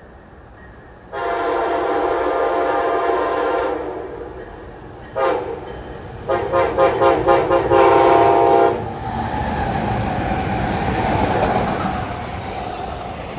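Amtrak passenger locomotive horn sounding for a grade crossing: a long blast, a short blast, then a final long blast that opens with rapid stuttering pulses. The train then passes at speed, its wheels rumbling steadily on the rails.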